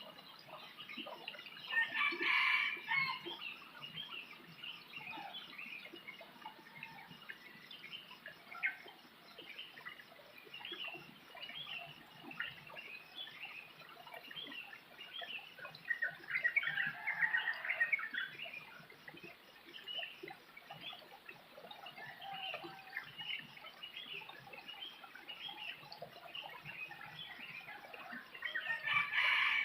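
Birds calling: many short chirps throughout, with three louder, longer calls of a second or two near the start, in the middle and at the end.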